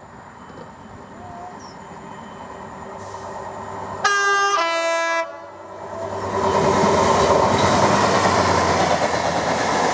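Freight train approaching at speed: a rumble builds, then the locomotive's two-tone horn sounds about four seconds in, a higher note then a lower one, lasting about a second. From about six seconds in the train passes loudly, its wheels running on the rails.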